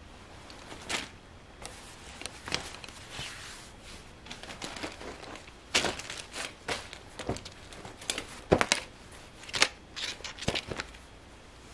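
Clear plastic packaging crinkling and rustling as denim pants are handled: irregular sharp crackles, some much louder than others, the loudest about eight and a half seconds in.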